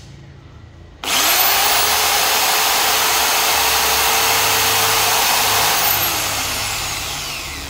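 Corded electric chainsaw switched on about a second in: the motor spins up quickly to a steady high whine and runs with the chain turning free. Near the end it is released and winds down, its pitch falling as it coasts.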